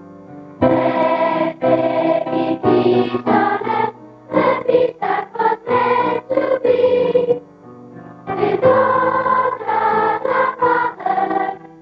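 A choir of schoolchildren singing, in sung phrases with a short breath-break about two-thirds of the way through.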